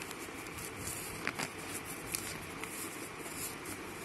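Sheet of paper being folded back and forth into accordion pleats: soft handling rustle with a few crisp creasing clicks, over a steady background hiss.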